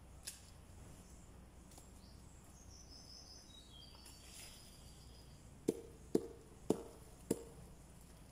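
Four dull chops of a bolo (machete) blade striking into garden soil, about half a second apart. A few faint bird chirps come a few seconds before them.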